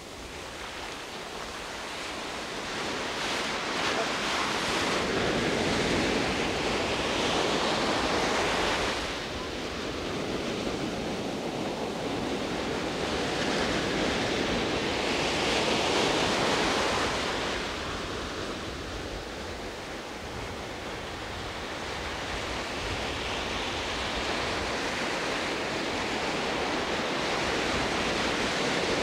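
Sea surf breaking and washing up the beach, a steady rushing noise that swells and eases as the waves come in, loudest for a few seconds around five and again around fifteen seconds in.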